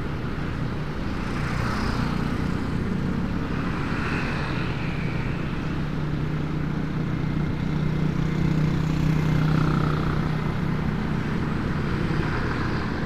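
Motorcycle engine running at a steady cruise, heard from the rider's own bike with road and wind noise; the engine note rises a little about eight to ten seconds in. Hiss swells and fades several times over the top.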